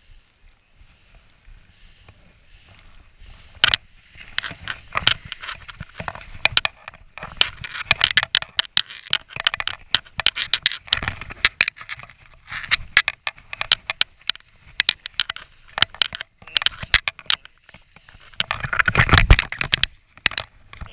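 Skis scraping through deep snow in quick, irregular turns, beginning about four seconds in after a quiet glide, with a loud rush near the end as powder sprays over the ski tips.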